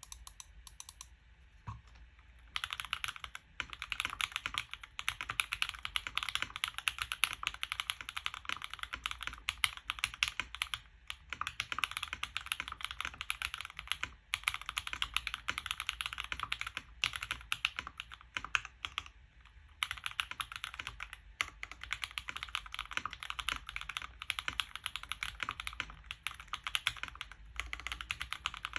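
Fast typing on a RAMA Zenith mechanical keyboard with Jwick Black linear switches on a stock aluminium plate with PE foam. A few single keystrokes are followed, from about two and a half seconds in, by a rapid, continuous stream of key presses with brief pauses.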